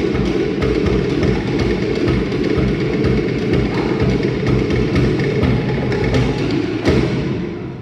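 Cook Islands drumming: a fast, dense beat of wooden slit drums over a deep bass drum. It ends on one loud final stroke near the end and then dies away.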